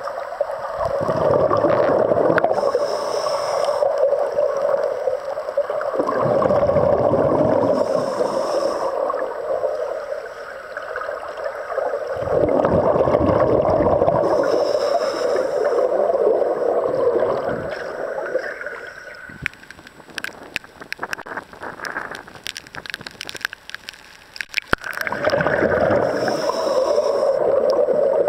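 Scuba diver's regulator breathing underwater: a short hiss on each inhale, then a long gurgling rush of exhaled bubbles, about four breaths. Between the third and fourth breaths there is a quieter stretch with scattered faint clicks.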